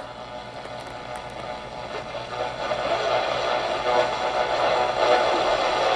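Sharp 3T-57 clock radio on the AM band, playing a steady hiss of static through its small speaker, growing louder over the first three seconds and then holding.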